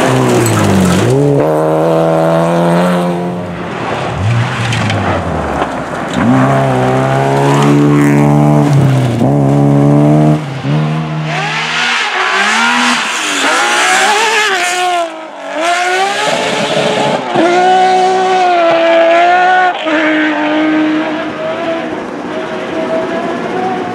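Rally car engines at full throttle on a gravel stage, the pitch repeatedly climbing and then dropping as they change gear. About halfway through the deep, close engine sound cuts away to a thinner, more distant car revving and easing off.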